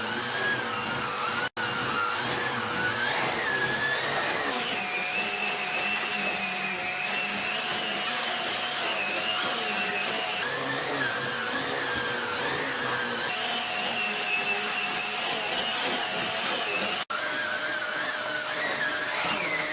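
Numatic vacuum cleaner running with the Airo Brush turbo tool, air-driven turbine and revolving brush, drawn over carpet. A steady rush of suction with a whine that steps between a higher and a lower pitch every few seconds.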